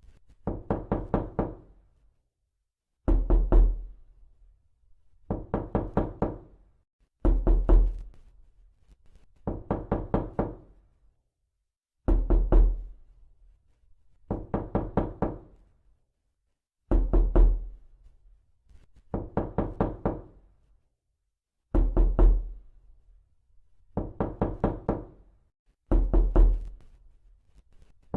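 Knocking on a door: quick runs of about five raps, one run every two seconds or so with silence between, repeated over and over. The runs alternate between a louder, deeper-sounding one and a slightly lighter one.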